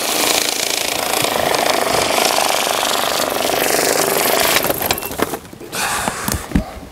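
Electric bill-counting machine running, a dense rapid rattle of banknotes feeding through, which cuts off about four and a half seconds in. A few scattered knocks and clicks follow.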